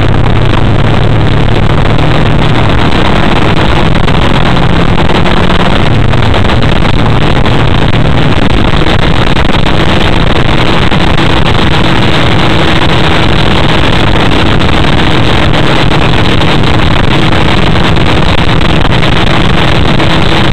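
Loud, steady wind rush and engine noise on a camera mounted on a vehicle travelling at road speed. A deeper drone during the first six seconds or so drops away after that.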